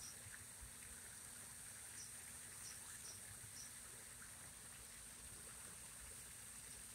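Near silence: faint steady outdoor hiss, with a few faint, short high chirps about two to four seconds in.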